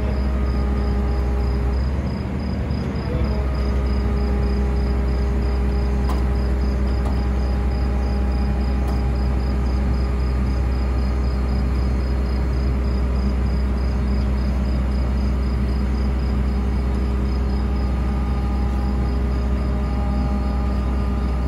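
Diesel engine of the Scania 113 crane truck running steadily to drive the crane's hydraulics while it lifts the ball mill: a constant low drone with a hum. Crickets chirp steadily behind it.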